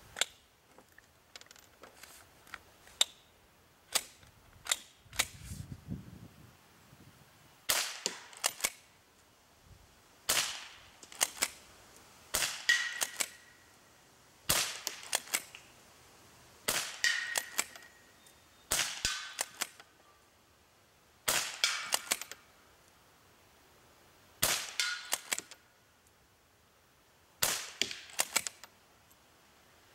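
FN Browning Trombone .22 pump-action rifle firing at cans: about a dozen sharp shots, mostly two to three seconds apart. Each shot is followed by a quick run of clicks as the pump action is worked.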